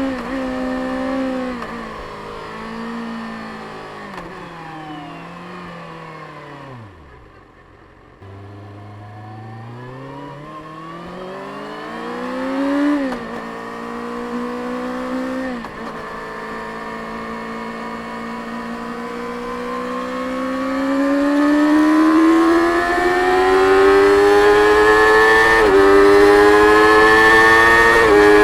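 Stock 2024 Kawasaki Ninja ZX-6R's 636 cc inline-four on its stock exhaust, slowing with the engine note falling almost to idle about seven seconds in. It then pulls away through two quick upshifts and builds speed steadily, getting louder, with another shift near the end.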